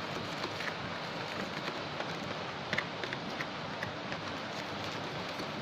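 Steady hiss of heavy rain, with a few short light clicks and taps, two close together a little under three seconds in.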